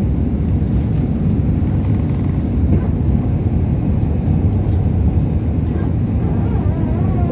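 Airliner cabin noise: a steady, deep rumble of engines and airflow heard from inside the plane.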